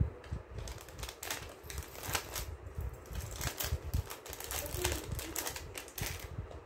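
Irregular light clicks and rustling of gold-finish costume jewellery being handled.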